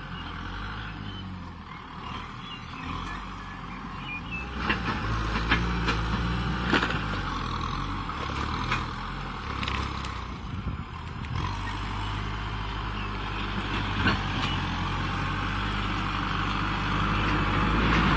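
Kubota M6040SU tractor's four-cylinder diesel engine running under load while it pushes through brush, its note shifting about eleven seconds in. Sharp cracks come now and then, most of them in the middle stretch.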